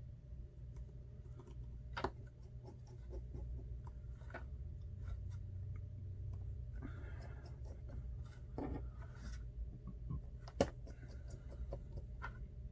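Small clicks and light scratching of repair tools and small parts being handled on an opened iPhone 8 Plus, with a sharper tick about two seconds in and a louder one near the end. A steady low hum runs underneath.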